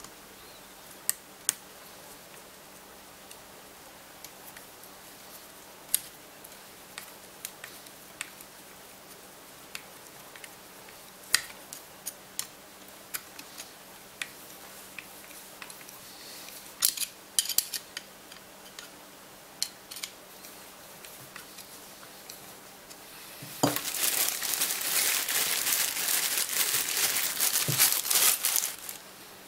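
Small metal clicks and taps of a screwdriver working the little screws of a Biax scraper's tool-holder block, scattered and irregular. About 23 seconds in comes a loud crinkling of a plastic bag that lasts about five seconds.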